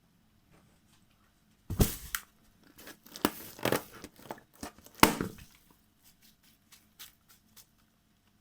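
A balloon popping: a sudden sharp pop about two seconds in, then crackling and crinkling of the rubber, a second sharp pop about five seconds in, and a few faint ticks after it.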